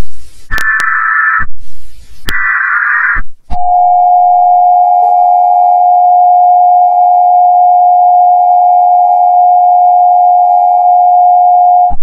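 Emergency Alert System tones: two harsh digital bursts of the SAME header, each just under a second long, then the steady two-tone attention signal held for about eight seconds before it cuts off sharply.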